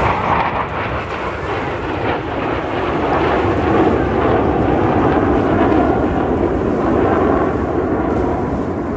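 Jet aircraft roar from a Blue Angels F/A-18 passing overhead, swelling over the first few seconds and then staying loud. Wind rumbles on the microphone underneath.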